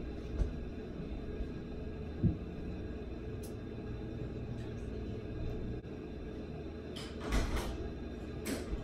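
Low steady room rumble with two soft knocks in the first few seconds, then a brief scraping clatter about seven seconds in and a shorter one near the end.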